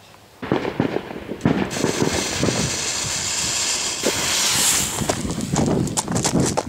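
Roman candle firework going off: a continuous fizzing hiss that starts about half a second in and grows stronger after a second or so, with a run of short sharp ticks near the end.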